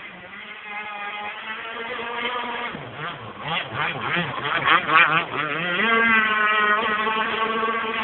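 Two-stroke Zenoah GS26 petrol engine of an RC powerboat running. Its pitch wavers up and down about a third of the way in, then settles higher, steadier and louder for the last couple of seconds.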